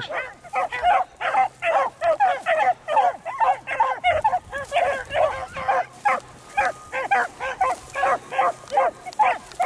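Beagles baying on a rabbit's track, a steady run of short, pitched yelps about two or three a second, the calls of more than one hound overlapping: the hounds are running the scent line through the briars.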